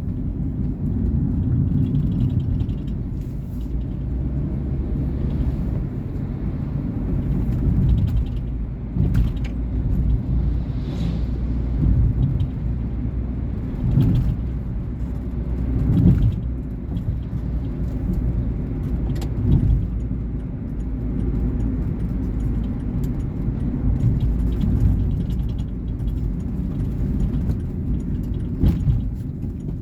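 2019 Volkswagen Polo Vivo being driven: a continuous low engine and road rumble, with a few brief knocks.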